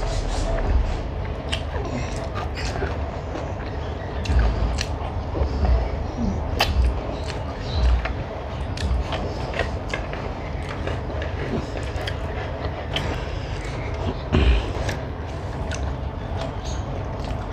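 Close-up eating sounds of a person eating rice and chicken curry by hand: fingers mixing and scraping food on a steel plate, with chewing and many scattered sharp mouth and finger clicks. A steady low rumble runs underneath.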